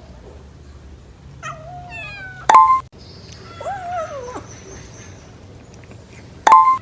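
A cat meowing twice, each call rising and then falling in pitch. Two louder, very short tones sound about four seconds apart.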